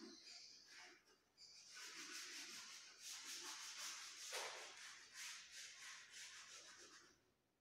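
Chalk scraping on a blackboard in quick, faint back-and-forth shading strokes, with a short break about a second in.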